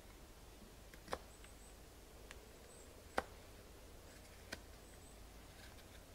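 Knife blade cutting into a spruce hearthboard while carving a bow-drill notch: three sharp snicks as the blade bites through the wood, the second the loudest, over a quiet background.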